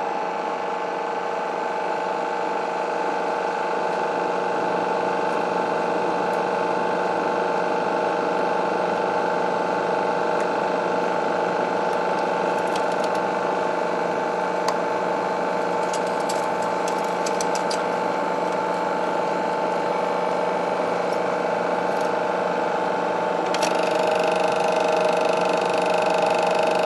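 Chinon SP-300 Super 8 sound projector switched on at its control knob and running: a steady mechanical whirr of motor, cooling fan and film transport with a constant hum. A few light clicks come in the middle, and the running gets a little louder with an added higher tone near the end.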